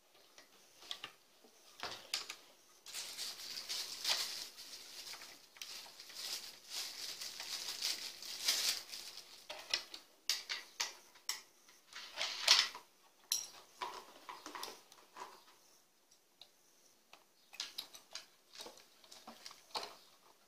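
Hard plastic parts of an electric chainsaw being handled: clicks, knocks and rattles as the sprocket side cover is worked loose and taken off. There are a few seconds of scraping in the first half and one sharper knock about halfway.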